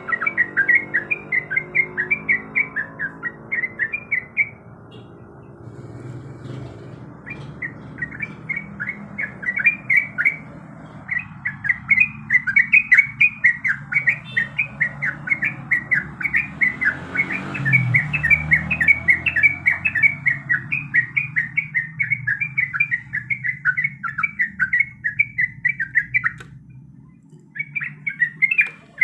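Yellow-vented bulbul (trucuk) singing a rapid rolling chatter of short bright notes, about six to eight a second, in long runs with two brief pauses.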